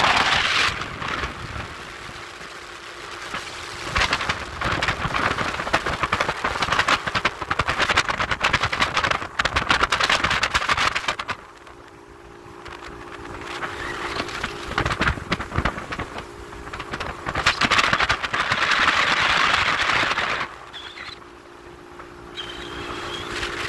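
Wind buffeting a phone's microphone in long gusts aboard a moving motorboat. In two quieter lulls, about halfway and near the end, the boat engine's steady drone comes through.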